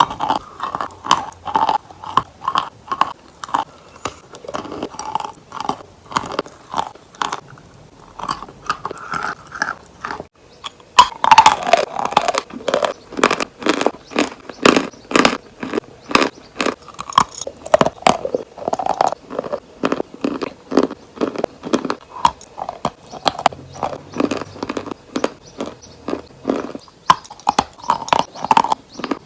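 Close-miked eating of crunchy chicken: crisp bites and steady chewing crunches, with a short pause about ten seconds in before a loud new bite.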